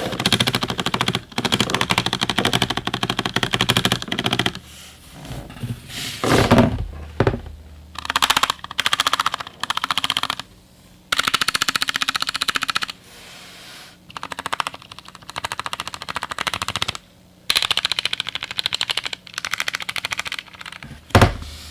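Fast typing on a Glorious GMMK Compact mechanical keyboard, a sound test after its stabilizers were clipped, lubed with Super Lube and band-aid modded. Rapid runs of key clacks break off in short pauses several times.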